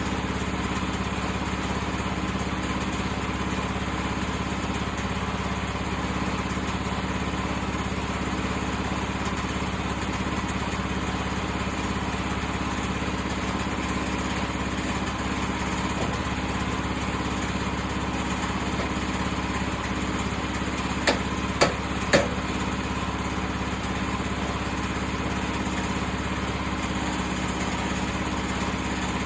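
Portable sawmill's small engine running steadily between cuts, with three sharp knocks close together about two-thirds of the way through.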